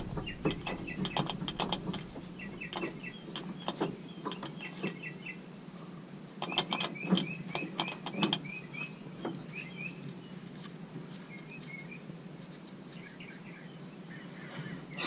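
A songbird calling in repeated quick runs of short chirps, with scattered sharp clicks and taps throughout, the loudest cluster about halfway through, over a faint steady hum.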